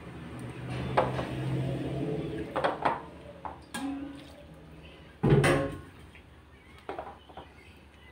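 Small wire whisk scraping and clinking against a glass mixing bowl while water is poured from a metal bowl into flour for kwek-kwek batter, with a heavier knock about five seconds in.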